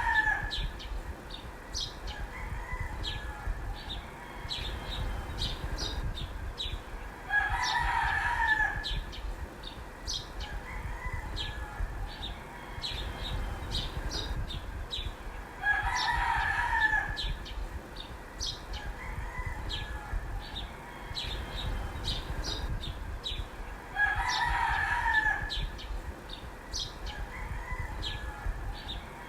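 A rooster crowing, a full cock-a-doodle-doo about every eight seconds: the end of one crow at the start, then three more. Short high chirps come between the crows.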